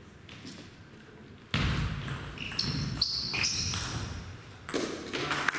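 Table tennis rally: ball clicks off bats and table, with players' shoes squeaking and thudding on the hall floor. Clapping starts near the end as the point is won.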